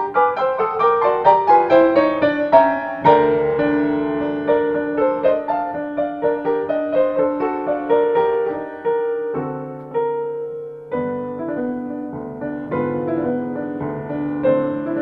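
Solo piano music: a quick run of short notes for the first few seconds, then slower, held notes and chords.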